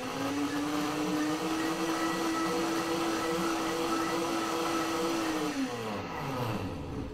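High-speed countertop blender running steadily, blending a thick cashew cheese sauce with thickener just added. Its motor pitch steps up slightly at the start as the speed is raised. About five and a half seconds in it is switched off, and the motor falls in pitch as it winds down to a stop.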